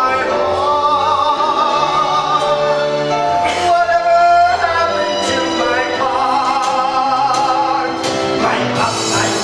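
A man singing a comic diva show tune in a theatrical, operatic style, holding notes with wide vibrato, over instrumental backing music.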